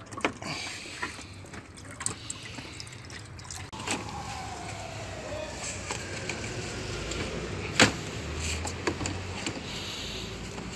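Scattered clicks and knocks of a BMW E39's radiator and its plastic surround being handled and worked loose in the engine bay, with one sharp knock about eight seconds in and a steady low hum underneath.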